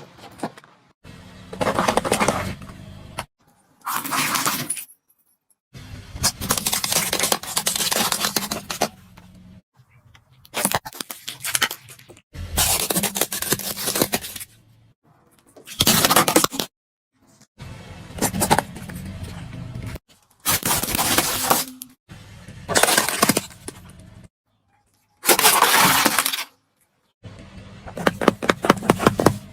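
A run of separate crunching and breaking sounds, about a dozen short bursts each a second or two long with brief silences between them: crunchy and soft objects being crushed under a car's tyre.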